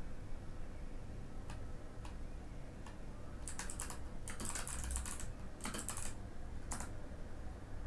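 Typing on a Mikit M65 mechanical keyboard with clicky Kailh Box White switches: a few single keystrokes, then quick bursts of typing from about three and a half seconds in.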